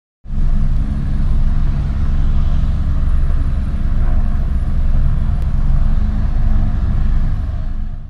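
A loud, steady low rumble with a deep hum, fading out at the very end.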